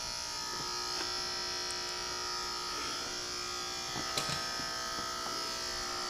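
Small electric aquarium air pump buzzing steadily, feeding air to a homemade smoke machine, with a few faint clicks about four seconds in.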